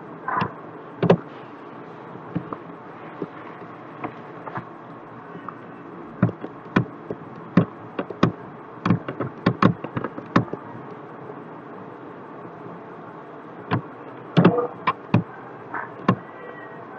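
Computer mouse clicking irregularly, a quick run of clicks in the middle and another cluster near the end, over a steady faint background hiss.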